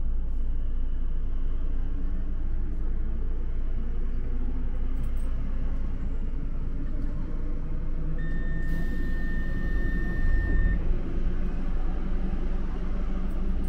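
Inside a Docklands Light Railway train standing at a platform: steady low hum and rumble of the train's equipment. About eight seconds in, a steady electronic tone sounds for about two and a half seconds, with a hiss, and the low rumble swells briefly as it ends.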